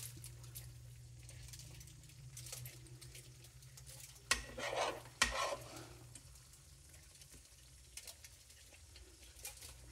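A spoon scraping and scooping sloppy joe meat in a hot pan, with a faint sizzle underneath. A few louder scrapes come about four to five seconds in.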